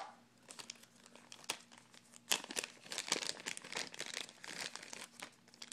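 Clear plastic bag crinkling and crackling in irregular spells as it is handled in the hands, loudest a little over two seconds in.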